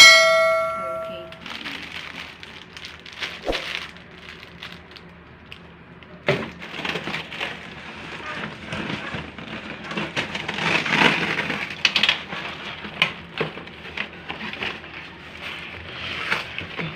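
A single bell-like ding at the start, ringing out for about a second and a half. Then rustling with scattered light clicks, as of toy pieces and packaging being handled during unboxing.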